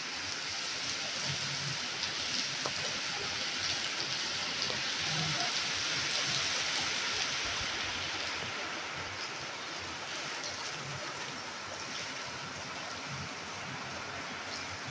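Steady rain pouring down, an even hiss that swells a little in the middle and eases slightly after about eight seconds.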